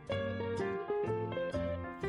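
Background music: light plucked guitar notes.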